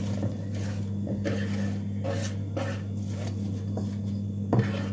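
Chopped onions being swept by hand off a wooden cutting board into a pot: soft, irregular rustling and scraping, with one sharper knock near the end. A steady low hum runs underneath.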